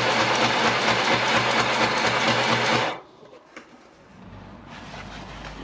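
Electric sewing machine running steadily, stitching binding onto heavy fabric with a rapid, even needle rhythm, then stopping sharply about three seconds in. A quieter low rumble with a few faint clicks follows.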